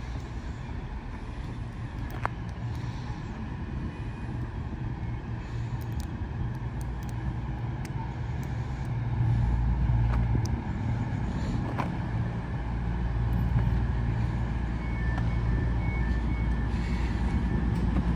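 Diesel multiple-unit train engines running at a station, a steady low drone that gets louder about nine seconds in, with a few sharp clicks and a faint thin squeal near the end.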